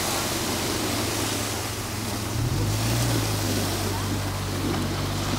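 Wind buffeting the microphone with a steady rushing noise, over a low mechanical hum that shifts in pitch about halfway through.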